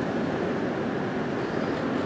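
Strong wind blowing against a parked vehicle, heard from inside the cab as a steady rushing noise.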